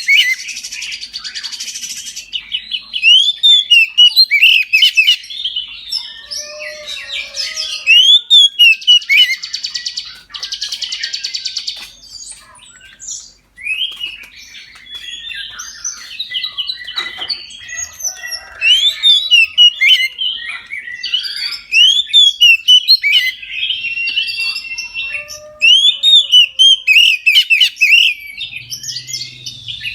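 Oriental magpie-robin (kacer) in full, open song: long runs of rapid, loud whistled notes and slurred phrases, broken by buzzy, rasping passages at the start and about ten seconds in.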